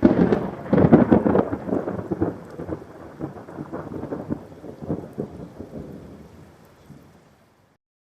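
Thunder: a sudden crackling clap that rolls on in a rumble and fades out over about seven seconds.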